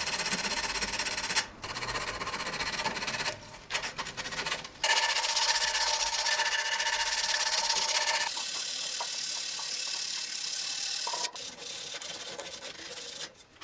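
Hand-sanding a wooden saw handle: sandpaper and a cloth-backed abrasive strip rubbed back and forth over the wood's curved edges in scratchy strokes, with short pauses.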